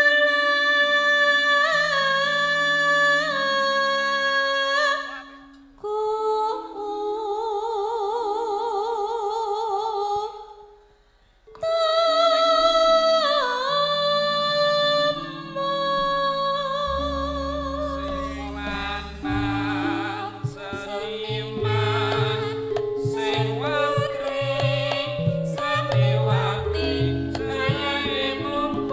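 Javanese langgam Sragenan music from a live band: a held melody line, wavering with vibrato in places, over slowly stepping bass notes, breaking off briefly about 11 seconds in. From about 17 seconds a deeper bass and a steady beat of percussion strikes join.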